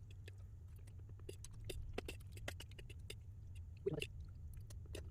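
Close-miked eating of shirataki-noodle pasta: soft chewing with many small wet mouth clicks and smacks, over a steady low hum. There is a brief murmur of voice about four seconds in.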